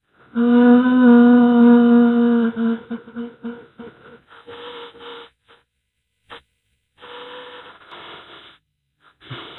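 A voice making vocal sound effects: a held hummed tone for about two seconds, then broken breathy bursts, a pause, and a fainter noisy stretch near the end.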